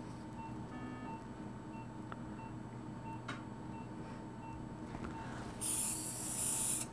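Operating-room background: a steady low hum with faint, evenly spaced electronic beeps from the theatre's equipment. Near the end comes a louder hiss lasting about a second.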